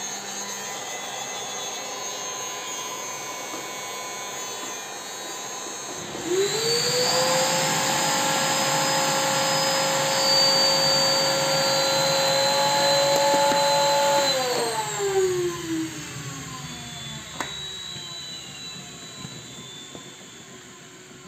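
Heat gun blowing hot air with a steady fan hiss. About six seconds in, a louder electric motor whine spins up, holds steady for about eight seconds, then winds down over a few seconds, with a single sharp click shortly after.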